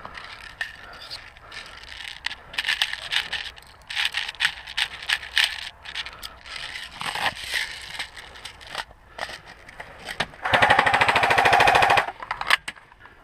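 Airsoft guns firing: scattered sharp clicks and pops of single shots, then a loud, rapid full-auto burst lasting about a second and a half near the end.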